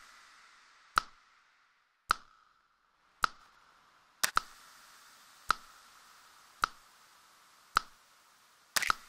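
Electronic click and rimshot percussion hits, about one a second with a couple of quick doubled hits, each trailing a long, super fizzy high-end reverb tail from the SparkVerb plugin as its settings are morphed.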